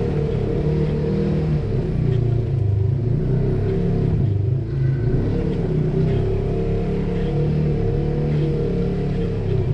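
Polaris RZR side-by-side's engine running under load at low speed as it crawls over rocks, the revs wavering up and down with the throttle and dipping briefly about four and a half seconds in.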